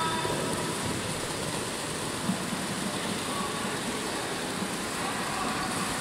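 Steady background hubbub of an indoor swimming pool, indistinct voices and water blended into a continuous noise, with one brief knock a little over two seconds in.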